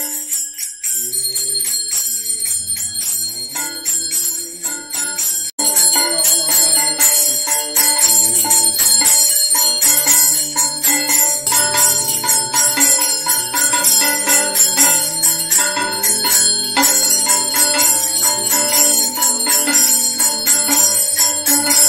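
Puja hand bell (ghanti) rung continuously for an aarti, a steady high jangling ringing, with a sung melody underneath. It all gets louder after a brief dip about five and a half seconds in.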